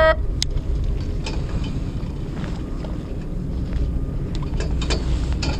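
Fishing boat's engine running with a steady low rumble, with wind on the microphone and a few light clicks of handling gear.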